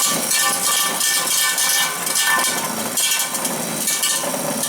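Vibrator running steadily as it compacts the furnace's refractory lining: a continuous loud noise with several steady tones running through it.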